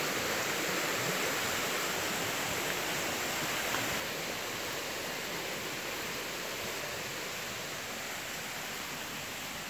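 Steady rushing of a shallow stream running over rocks. It drops a little in level about four seconds in.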